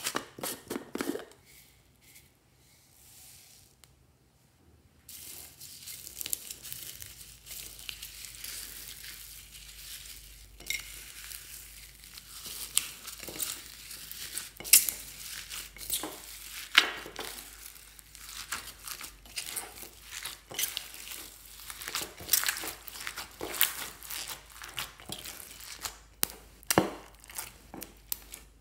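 Hands squishing and kneading glossy slime mixed with foam beads in a glass dish, giving a dense run of wet crackles and small pops. It starts about five seconds in, after a brief rustle and a short quiet pause.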